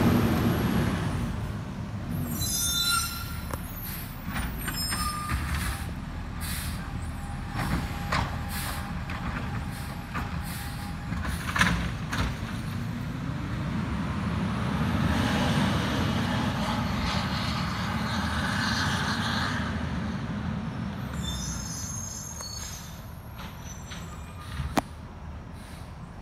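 Peterbilt 520 garbage truck with a Labrie Automizer body pulling away and growing fainter as it goes, its diesel engine running steadily. Air brakes hiss twice and there are scattered knocks and clanks.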